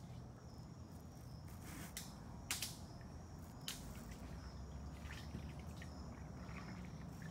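Faint natural ambience: a thin, steady insect drone over a low rumble, broken by a few sharp drips or taps, the loudest about two and a half seconds in.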